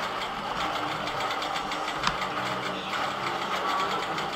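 Longarm quilting machine stitching steadily, its needle and hopping foot running in a fast, even rhythm. A single sharper click comes about two seconds in.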